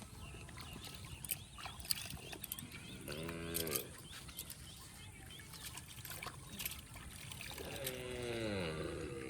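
A cow mooing twice: a short call about three seconds in and a longer one near the end that falls in pitch. Small scattered clicks sound in between.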